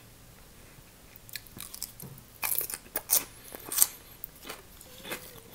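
A person bites into and chews a fresh cucumber slice, making crisp, crackly crunches. The crunching starts about a second and a half in, is loudest in the middle and thins out near the end.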